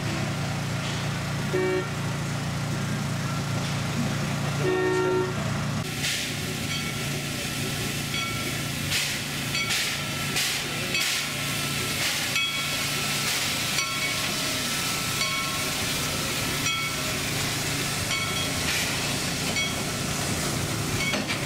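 Narrow-gauge steam locomotive of the Maui Sugar Cane Train arriving: two short whistle toots in the first five seconds, then steam hissing and the knocking and clatter of the engine and its open passenger cars rolling slowly past.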